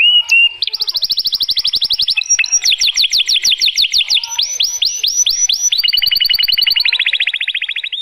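Domestic canary singing a long song: a fast buzzy trill, then a run of quick down-slurred notes that slow slightly, then another fast trill.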